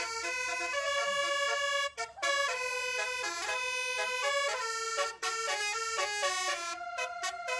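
Basuri telolet horn on a tour bus playing a tune: several air-horn trumpets sound together in chords of steady notes that change pitch every fraction of a second, with brief breaks about two and five seconds in.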